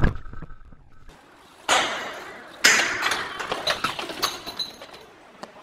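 Two sudden crashes about a second apart, each fading out, followed by scattered clattering knocks.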